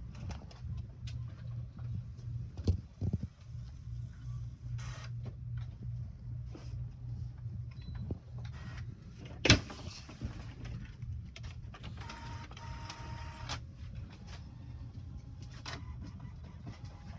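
All-in-one inkjet printer running, over a steady low hum, with scattered mechanical clicks and a short whirring pass with a steady tone about twelve seconds in. One sharp knock about nine and a half seconds in is the loudest sound.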